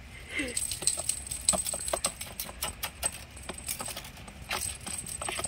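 Kittens scuffling and playing with a wand toy on concrete and a cardboard box: scattered light clicks, taps and small rattles at an uneven pace, with a faint steady high-pitched tone behind.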